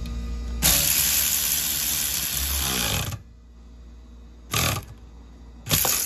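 Power tool turning a socket on the engine splash-shield bolts: one run of about two and a half seconds that winds down, then two short bursts.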